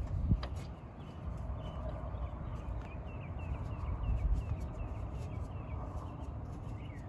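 A bird chirping repeatedly in short quick notes over a steady low rumble, with one sharp knock just after the start.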